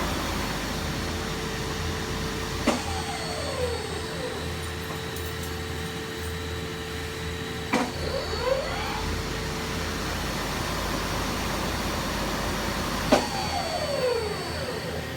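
1997 Mazak SL40 CNC lathe running, with a steady hum. A sharp click comes three times, about five seconds apart, each near a whine that glides down or up in pitch.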